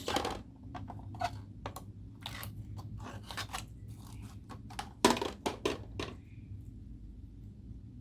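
Homemade slime being squeezed and kneaded by hand, making irregular sticky crackles and pops, loudest in a quick cluster about five seconds in.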